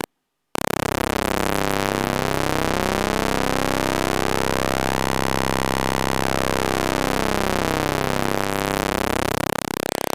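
Saw wave from a Eurorack modular synthesizer, bit-crushed into several stacked modulated pulses: a steady buzzing synth tone whose harmonic texture sweeps one way and then back as a knob is turned. It cuts out briefly at the start and resumes about half a second in.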